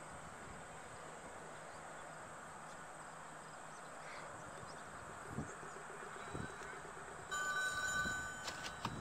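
Faint, steady background hiss with two soft low thumps. About seven seconds in, a louder sound made of steady high tones starts.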